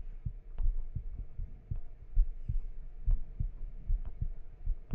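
Irregular soft thumps and light knocks, about two a second, from objects being handled and set down.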